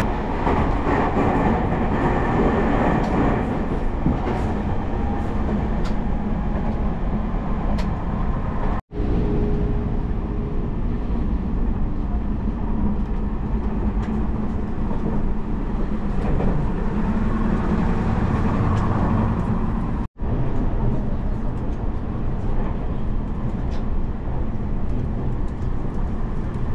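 Cabin noise of a Tobu Spacia X electric limited express train in motion: a steady rumble of running gear and wheels on rail. It drops out for a split second twice, about nine seconds in and again about twenty seconds in.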